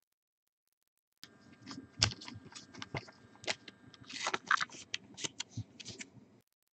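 Dead silence, then from about a second in a run of small crinkles and clicks from a trading card being handled and slid into a thin clear plastic sleeve.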